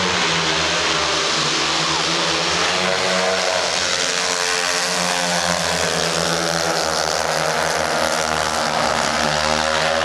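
A pack of four speedway bikes, each with a 500 cc single-cylinder methanol engine, racing at full throttle, their mixed engine notes rising and falling in pitch as they pass and go into the bend.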